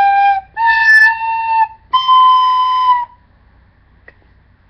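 Red plastic soprano recorder playing three notes that step upward in pitch: the end of a held G, then A, then B held for about a second. The notes are blown breathily and stop about three seconds in.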